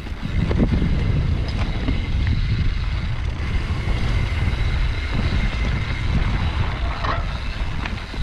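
Wind rushing over the microphone and the rumble and rattle of a mountain bike rolling down a rough dirt trail, with a few sharp knocks from rocks and roots.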